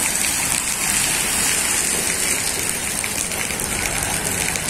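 Steady rain on a flooded street, with water splashing from the tyres of a pickup truck driving through it.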